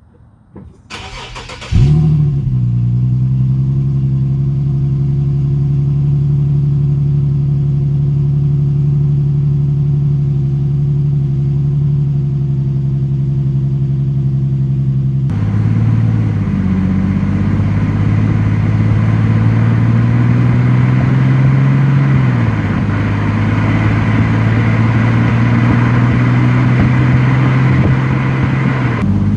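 Infiniti G37 sedan's 3.7-litre V6 on its stock exhaust, cranked by the starter about a second in, catching with a brief flare of revs, then settling into a steady idle. About halfway through the sound changes abruptly, and the idle runs on with slight rises and falls in pitch.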